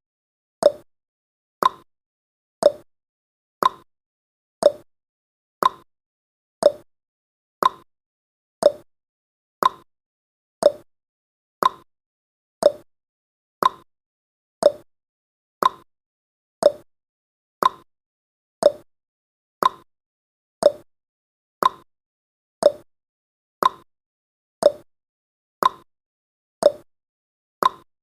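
Clock-ticking sound effect marking each second of a countdown timer: one sharp tick a second, alternating higher and lower like a tick-tock.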